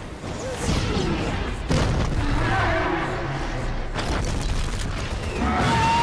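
Monster-movie action sound mix: a deep, constant rumble with a sharp boom about two seconds in, and high wavering shrieks over it.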